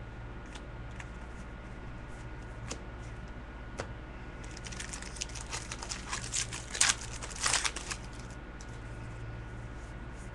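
Trading cards and their packaging being handled: a couple of light clicks, then rustling and crinkling that is busiest from about halfway through to near the end, over a steady low hum.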